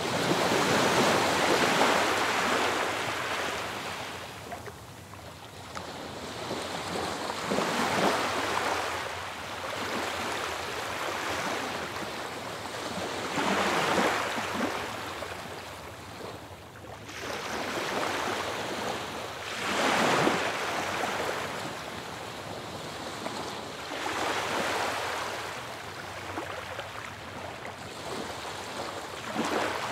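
Ocean surf breaking on a beach, each wave swelling up and washing back out about every five to six seconds.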